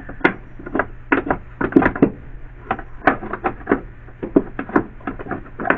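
Windshield wiper linkage arm being handled and worked into its housing: irregular clicks and knocks of the parts tapping together, about three or four a second.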